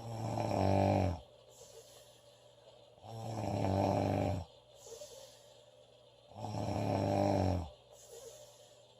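A girl snoring loudly in a slow, even rhythm: three snores about three seconds apart, each a low, buzzing rasp lasting just over a second.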